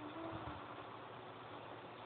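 The quiet pause between a sleeping person's snores: a faint low hiss, with a soft breath in the first half-second.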